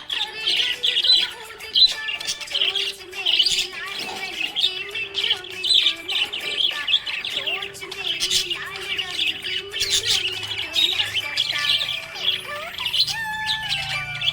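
Budgies chirping and chattering, a dense run of fast, high chirps and squawks with no pause, over steady background music.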